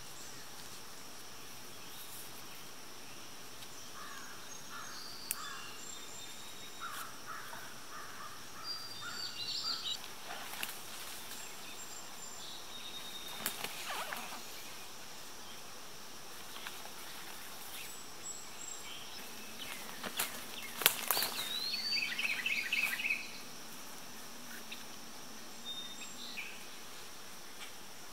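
Woodland ambience: a steady high insect drone with scattered bird chirps and short trills, over rustling and scraping as paracord is worked around a downed tree trunk, loudest about 20 to 23 seconds in.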